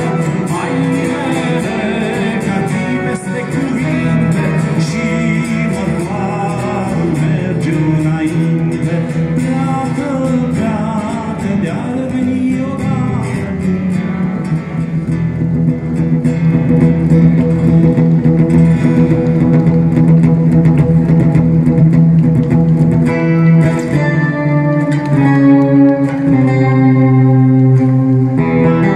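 Two acoustic guitars playing an instrumental passage of a folk song. The first half has a wavering melodic line over the chords; from about halfway it turns louder, with sustained strummed chords.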